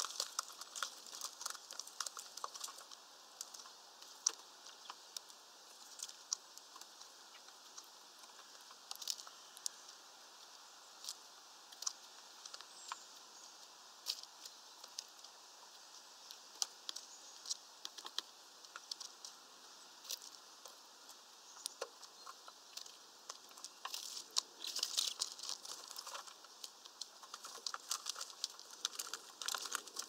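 Finches pecking at a mesh peanut feeder and cracking seed: irregular sharp clicks and crackles, coming in dense runs at the start and again near the end.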